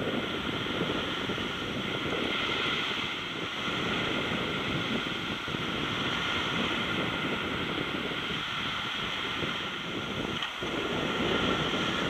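Wind blowing steadily against the microphone, over the wash of sea waves breaking on the shore.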